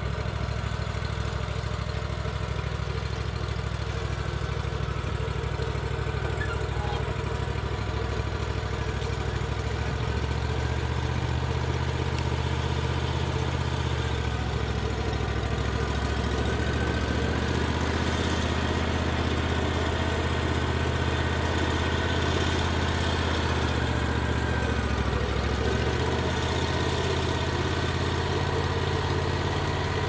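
Wood-Mizer LT40 portable band sawmill's engine running steadily, its pitch shifting slightly a few times.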